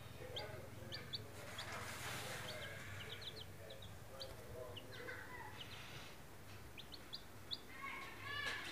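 Young chicks peeping: a scatter of short, high cheeps, sometimes several in quick succession, with a quieter stretch after the middle. Someone's voice comes in near the end.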